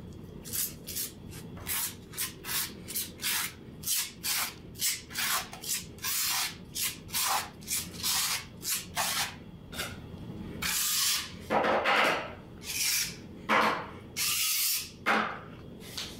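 A putty knife scraping grout across floor tiles in quick short strokes, a little over two a second, for about ten seconds, then a few longer, louder scraping strokes near the end.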